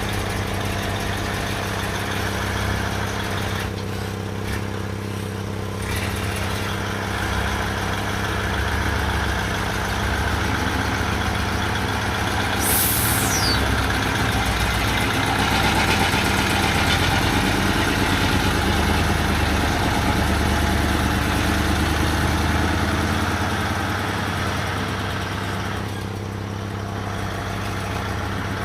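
Heavy machine engine running steadily at a low, even rate, getting a little louder through the middle. A brief high falling whistle comes about thirteen seconds in.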